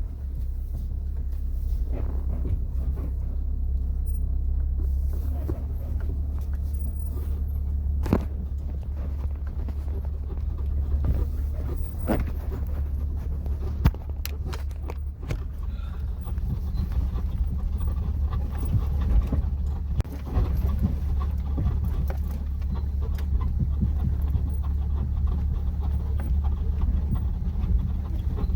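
Honda Element driven over a rough forest road, heard from inside the cabin: a steady low rumble of engine and tyres, with occasional knocks and rattles over bumps.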